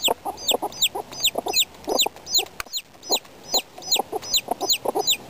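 Baby chicks peeping, a steady string of high notes that each fall in pitch, about three a second, over the low, short clucks of adult hens.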